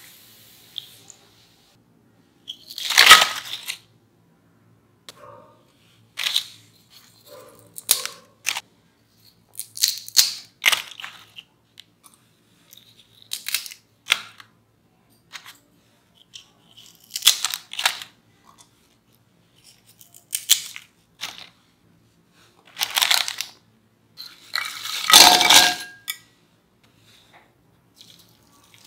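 Crisp deep-fried spiral potato chips crunching and crackling as they are handled and broken by hand, in a dozen or so short separate bursts, the loudest about three seconds in and again about twenty-five seconds in.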